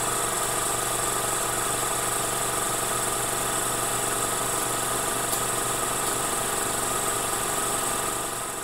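A steady mechanical hum with a whirring drone that holds level throughout, then fades away near the end.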